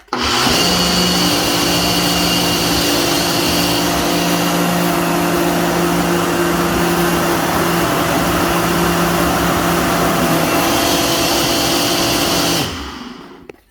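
Ninja blender's motor running at full speed, loud and steady with a high whine, then switched off near the end and spinning down over about a second.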